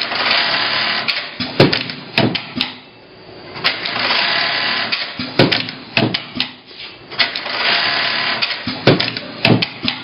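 Industrial velcro-attaching sewing machine (S-430D-VA, with automatic velcro feeder and cutter) running in short sewing bursts of a few seconds each. Several sharp clacks come between the runs.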